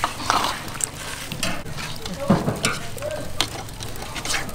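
Raw beef pieces being handled in a metal bowl and laid onto a barbecue grill grate: irregular short, soft clicks and slaps of meat and metal.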